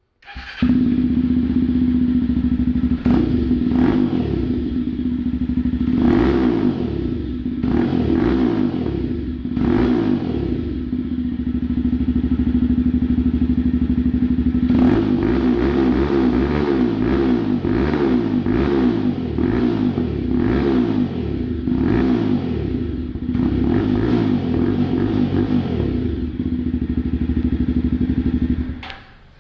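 Jawa 42's single-cylinder engine running through aftermarket SC Project exhaust mufflers, loud, with a deep bass note. It is revved again and again, rising and falling in quick succession for much of the second half, and cuts off suddenly near the end.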